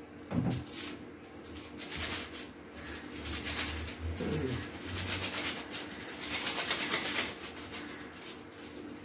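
Rustling and crinkling of noodle packaging being handled and opened, in two longer stretches. Twice a short low cooing call falls in pitch, typical of a pigeon.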